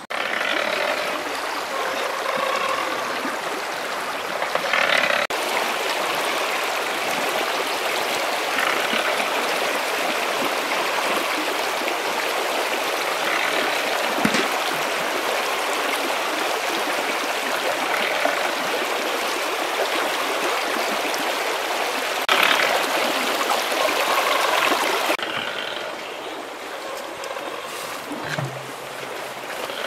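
Shallow stream running over rocks, a steady rush of water that drops to a lower, thinner level near the end.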